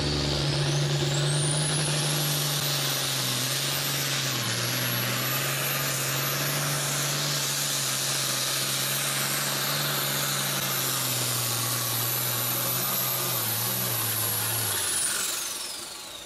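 Turbocharged International Harvester tractor diesel running flat out under full load, pulling a sled. The turbo whistle climbs steeply in the first second or so and holds high over a steady engine note, then both wind down near the end as the engine is throttled back.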